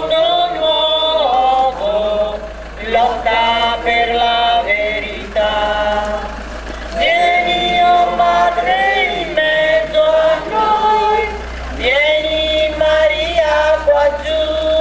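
Men and women singing a hymn together, in long held notes with short pauses between phrases, over a low steady hum.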